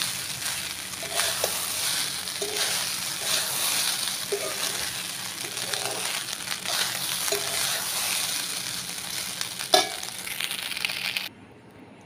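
Leftover rice frying in oil in a metal pan, sizzling steadily while a spatula stirs and scrapes it about once a second, with one sharp knock near the end. The sizzling cuts off abruptly shortly before the end.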